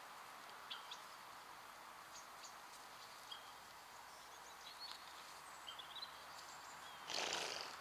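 Faint outdoor ambience with scattered short bird chirps and twitters. Near the end a short, louder breathy rush of noise lasting about half a second.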